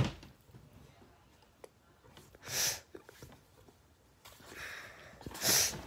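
A short sniff about two and a half seconds in, then a paperback book page being turned: a soft rustle and a short swish near the end.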